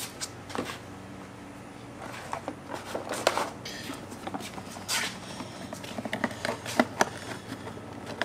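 Footsteps on a concrete driveway, then the rustle and sharp clicks of a cardboard air-filter box being handled, over a low steady hum.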